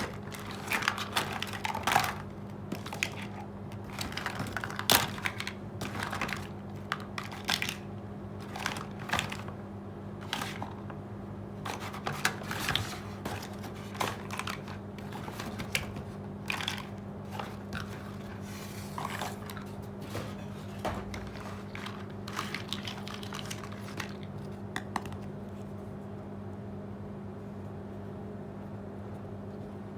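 Small plastic toy kitchen pieces being handled, with irregular light clicks, clacks and rustles, over a steady low hum. The handling thins out near the end.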